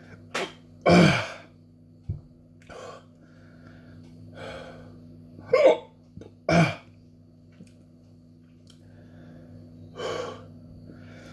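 A man's short, sharp gasps, breaths and throat sounds, several of them spaced through the stretch, some with a voiced catch like a hiccup: a reaction to the burn of eating whole Carolina Reaper peppers. A steady low hum runs underneath.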